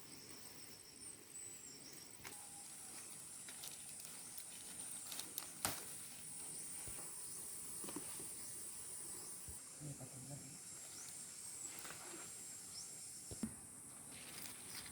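Insects trilling steadily at a high pitch, the chorus starting and stopping in stretches, with scattered sharp clicks and a few short high chirps.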